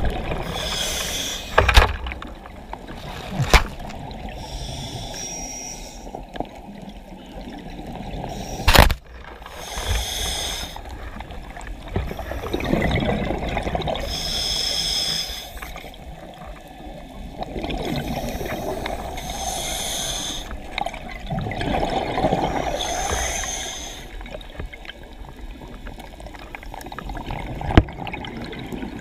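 Underwater sound of a scuba diver breathing through a regulator: hissing inhalations about every five seconds alternating with bubbling exhalations. A few sharp knocks, the loudest sounds, come about two and three and a half seconds in, near nine seconds and near the end.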